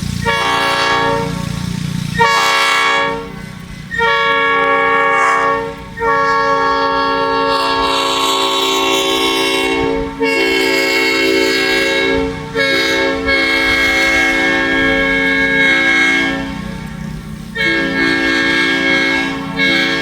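Locomotive air horn sounding a chord of several tones in a series of blasts of varying length, from under a second to about four seconds, with short breaks between. A low rumble from the train runs under it at the start and again near the end.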